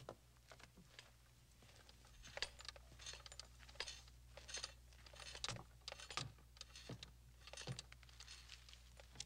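Faint scattered clinks and shuffles over near silence, several a second from about two seconds in: armoured soldiers shifting and stepping.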